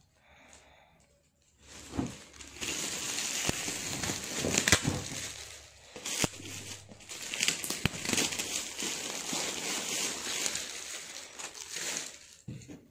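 Red metallic foil gift wrap crinkling and tearing as it is pulled off a cardboard box, with a few sharp clicks among the rustle. It starts about two seconds in after a near-quiet start.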